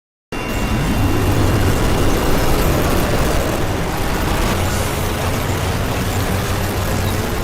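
Glitch sound effect: dense, harsh static with a steady low hum underneath, starting abruptly after a moment of dead silence.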